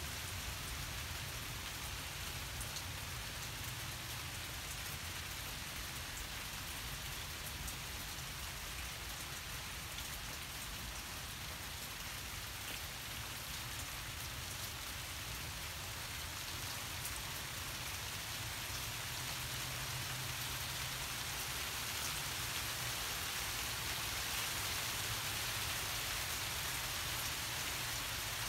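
Heavy thunderstorm rain falling steadily on the street and surroundings: a constant hiss of rain, with a steady low rumble underneath. It grows slightly louder about two-thirds of the way through.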